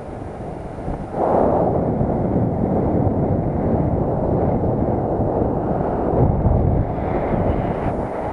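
Airflow of paraglider flight buffeting the camera microphone: a loud, steady low rumble that grows louder about a second in.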